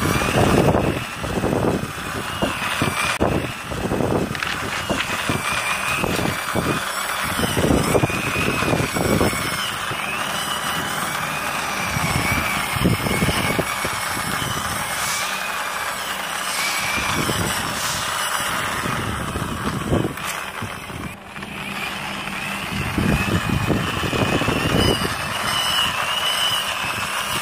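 Plastic toy double-decker bus pushed by hand along a concrete ledge, its plastic wheels rolling with an uneven low rumble, and a wavering high whine that rises and falls throughout.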